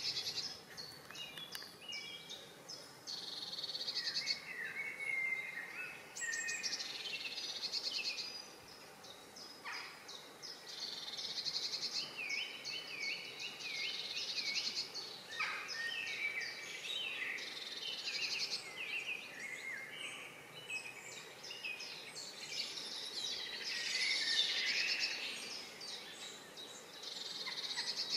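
Songbirds singing around the river, several overlapping songs of quick repeated phrases and trills that come and go every few seconds.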